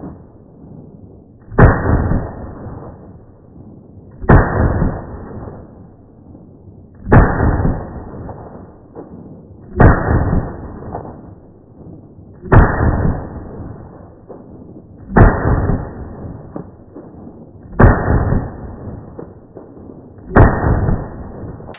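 AR-15 rifle shots slowed down, heard as eight deep, drawn-out booms about every 2.7 seconds, each opening with a sharp crack and dying away over about a second.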